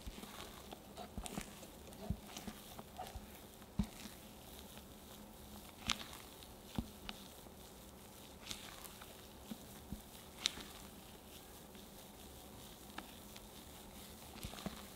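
Silicone spatula folding meringue into egg-yolk batter in a glass bowl: soft, wet folding sounds broken by irregular light taps and clicks of the spatula against the glass.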